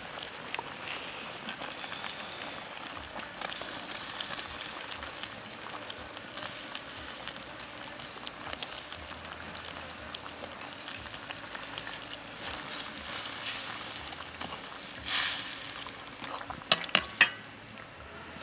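Tom yum soup boiling in a steel wok over a wood fire, bubbling steadily with small pops and crackles. Near the end come three sharp metallic clicks as a steel ladle is put into the wok.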